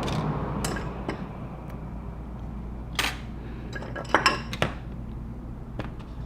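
Small metal repair tools clicking and tapping on the iPod touch's metal bracket and parts during disassembly: a few light, sharp clicks, with a quick cluster about four seconds in, over a steady low hum.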